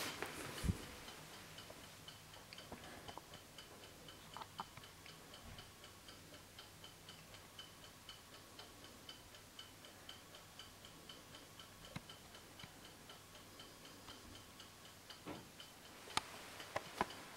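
Lever platform escapement of a Viner double-fusee table clock ticking fast and evenly, a light, high-pitched tick. A few louder knocks come about a second in and near the end.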